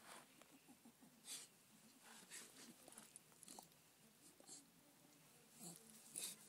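A Patterdale terrier and a Parson Jack Russell terrier play-fighting, heard faintly: short breathy snuffles and huffs at irregular intervals, a little louder near the end.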